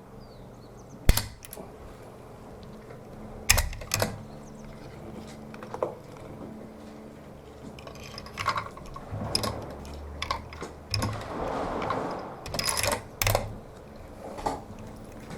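Scattered clicks and knocks of a rifle and shooting gear being handled, with no shot fired. One sharp knock about a second in is the loudest, and a busier run of clattering follows in the second half.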